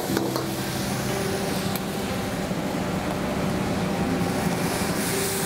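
Pixian chili bean paste sizzling in hot oil in a wok over a gas wok burner running at full flame, a steady hiss over a low burner roar, with a light ladle knock just at the start.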